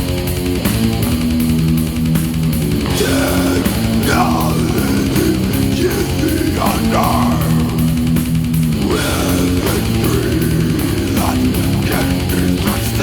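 Death metal music: heavy distorted electric guitar riffs driven by drums, loud and continuous.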